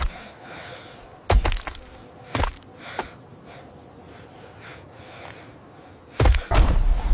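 Heavy thuds: one about a second in, another a second later and a lighter one soon after, then a louder, longer crashing impact with a low rumble near the end.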